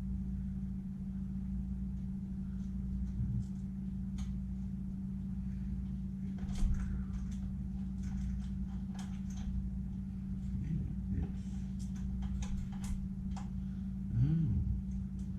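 Scattered light clicks and knocks from a chainsaw bar and chain being handled and fitted onto the saw, over a steady low hum.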